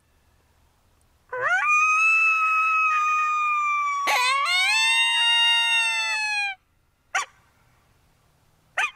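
Coyote howling: two long howls, each rising steeply at the start, then held and slowly falling in pitch, followed by two short yips near the end. This is the kind of howl used to call in coyotes.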